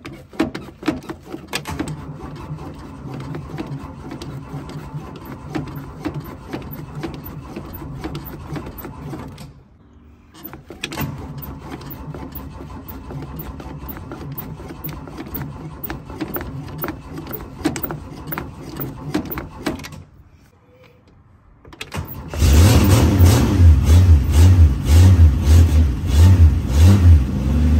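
A 1968 Plymouth Valiant's slant-six engine being cold-cranked by its starter in two long bursts of about nine seconds each. After a short pause, a third try about three-quarters of the way through brings the engine to life, and it runs loud and lumpy.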